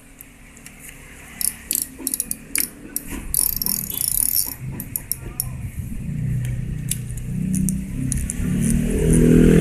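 KastKing Sharky III 5000 spinning reel being reassembled by hand: clicks and rattles as the spool is fitted onto the reel, then a whirr of its gears turning that grows louder toward the end.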